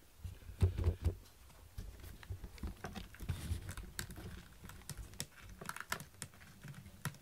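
A cat clawing a woven sisal scratching pad: irregular rasping scratches and clicks of claws catching in the weave, with a few low thumps about a second in.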